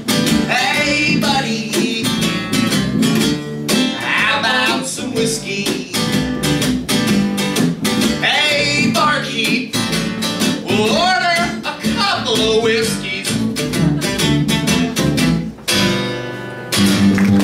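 Strummed acoustic guitar and plucked upright bass playing a country song, with a man's voice singing over them in phrases. The song ends on one final strummed chord near the end.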